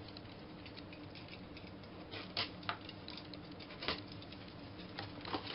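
Cardboard shipping box being pulled open by hand: quiet crackling and rustling of cardboard flaps and tape, with a few sharper ticks about two and a half and four seconds in.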